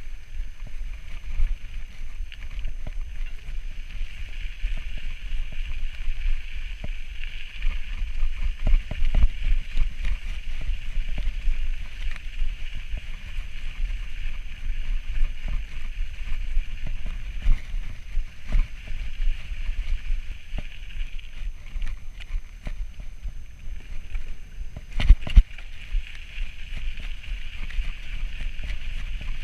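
Mountain bike riding over a dirt and gravel trail: steady tyre noise with scattered knocks and rattles from bumps, and wind rumbling on the camera microphone. A couple of sharper knocks come near the end.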